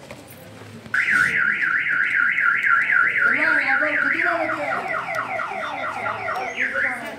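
Electronic car alarm siren going off: it starts suddenly about a second in with a fast up-and-down warble, several sweeps a second, switches about four seconds in to rapid repeated falling chirps, and cuts off near the end.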